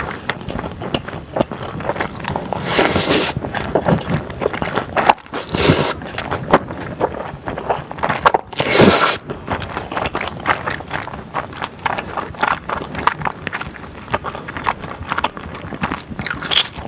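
Close-miked eating of thick glass noodles: wet chewing and mouth clicks throughout, broken by three long slurps about 3, 6 and 9 seconds in.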